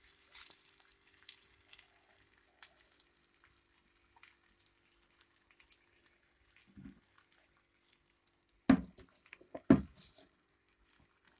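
Faint, scattered crackling of a roti cooking on a hot oiled tawa, over a faint steady hum. Two sharp knocks about a second apart near the end are the loudest sounds.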